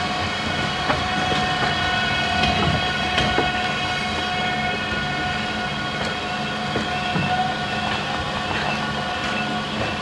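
South Shore Line electric multiple-unit passenger cars giving off a steady electrical hum and whine of several held tones, with scattered metallic clicks.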